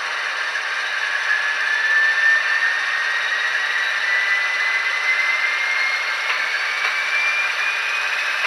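HO-scale BR 232 'Ludmilla' diesel locomotive model running slowly, its ESU sound decoder playing the diesel engine sound through the model's small speaker: a tinny, hissy engine noise with no bass, with a whine rising steadily in pitch as the locomotive gathers speed.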